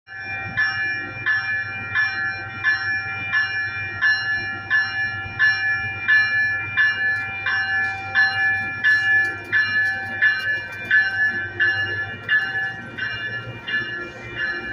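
Metrolink train's bell ringing steadily, a clang about every 0.7 seconds, as the train runs slowly along the platform, with a low hum underneath.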